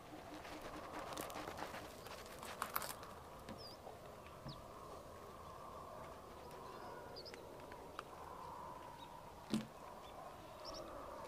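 Faint outdoor background with scattered short bird chirps, and a few sharp cracks and clicks as a spiky durian husk is pried apart along its seams with a knife.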